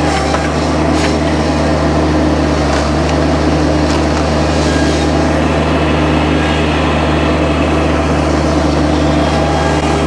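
An engine running steadily at a constant speed, with a few faint clicks or knocks over it.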